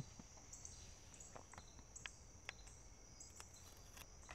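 Near silence, with a faint, steady high chirring of crickets and a few faint small clicks.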